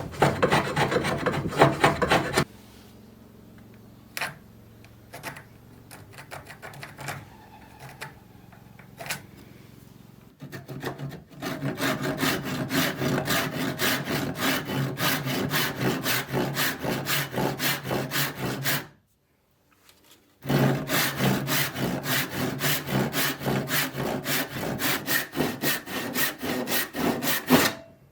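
A wood rasp stroking back and forth on wood in quick, even strokes, about four a second. The strokes stop for a quieter stretch with a few scattered knocks, start again and run on, then break off for a moment and resume.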